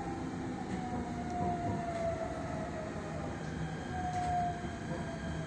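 Electric metro train heard from inside the car, with a steady running rumble and a motor whine that slowly falls in pitch as the train slows into a station.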